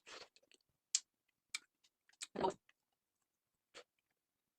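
Close-miked mukbang eating sounds: sharp mouth clicks and smacks about a second apart, with a louder, fuller thud about two and a half seconds in.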